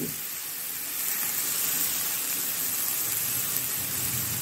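Chopped onion, capsicum and tomato sizzling in butter in a pan as they sauté, a steady hiss that gets a little louder about a second in.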